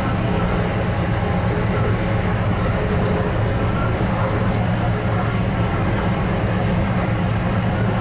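Stadler GTW-E electric multiple unit running at a steady speed, heard from inside the passenger cabin: an even low hum with the rumble of the wheels on the track, holding level without speeding up or slowing down.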